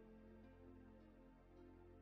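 Very faint background music of soft, held notes, close to silence.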